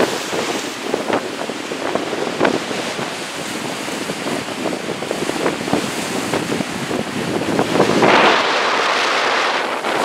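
Storm wind buffeting the microphone over rough sea waves breaking and splashing against shore rocks; the wind grows louder about eight seconds in.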